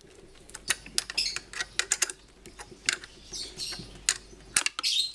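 Irregular small metallic clicks and taps from a tool working the new bolts on a Hitachi automatic water pump's housing as they are tightened, over a faint steady hum that stops near the end.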